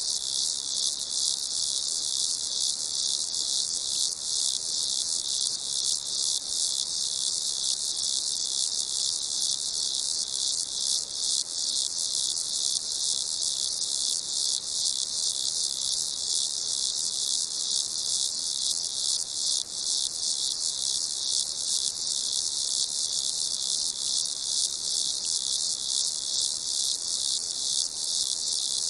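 Many crickets chirping together in a steady, unbroken chorus of rapid high-pitched pulses.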